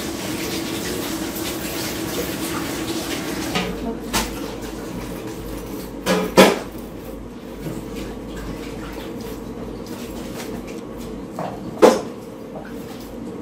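Kitchen clatter: metal bowls and utensils knocking together a few times, the loudest clinks about six and twelve seconds in, over a steady background hiss.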